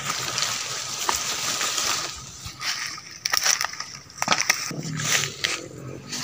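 Leaves and stems rustling as they brush close past the microphone, then irregular crunching and crackling of footsteps on dry leaf litter.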